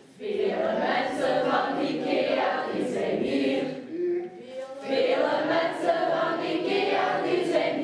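A group of voices singing together in unison, in two phrases with a short break about four seconds in.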